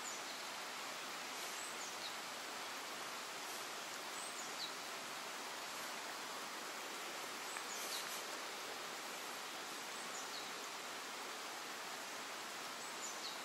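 Steady outdoor background hiss, with a small bird's high, thin call sliding downward repeated about six times at irregular intervals.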